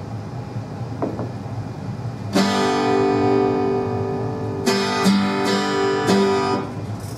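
Acoustic guitar strummed: after a couple of seconds of quiet, a chord is struck and rings out, followed by three more strums in quick succession before it stops.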